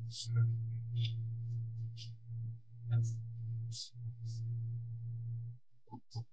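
A hip-hop beat playing: a deep, sustained bass tone with a sharp high hit about once a second. The bass drops out briefly near the end.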